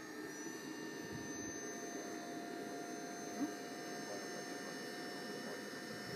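Small model jet turbines of an RC F-14 running during start-up: a steady whine of several high tones over a low rumble. A brief click about three and a half seconds in.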